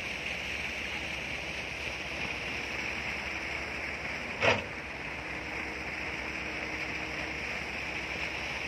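Steady hum of a Hitachi excavator's diesel engine idling, with a single sharp knock about halfway through.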